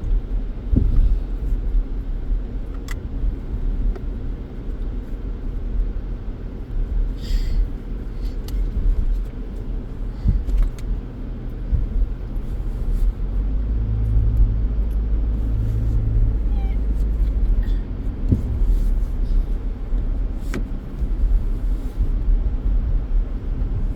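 Steady low rumble inside a car, with scattered clicks and knocks and a brief hum about two-thirds of the way in.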